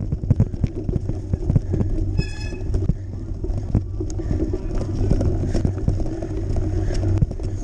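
Cyclocross bike ridden over a rutted, snowy and muddy dirt track, heard from a camera mounted on the bike: a steady low rumble with rapid, irregular knocks and rattles as the tyres and frame jolt over the bumps. A short, high ringing tone sounds about two seconds in.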